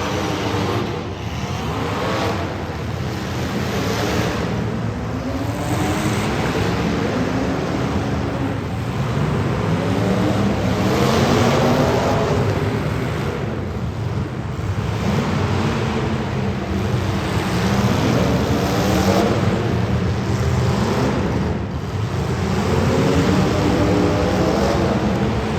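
Several street stock race cars racing, their engines revving up and easing off in turn as they go round the track.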